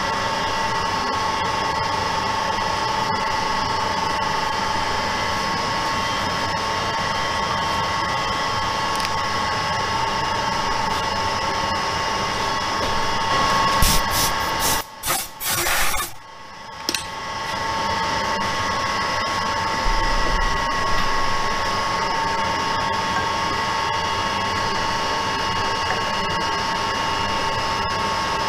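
Metal lathe running with a carbide boring bar cutting the centre bore of an aluminium alloy wheel: a steady whine with several held tones. About halfway through there is a brief break with a few clicks, then the sound builds back up.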